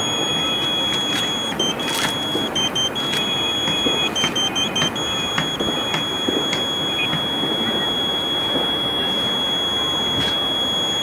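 Steady high-pitched electronic buzzer tone from a Tooway Ka-band satellite terminal's antenna-pointing aid, sounding while the dish is aligned for signal strength; the tone dips slightly lower for short moments several times in the first five seconds. Under it runs a continuous rushing background noise with scattered clicks.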